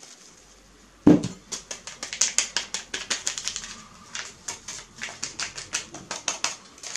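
A folded paper sachet scraping and tapping fast against a glass bowl while it stirs baking powder and vanilla into flour, several ticks a second, with one louder knock about a second in.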